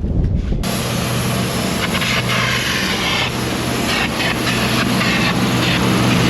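An engine running steadily at an even speed, coming in abruptly about half a second in.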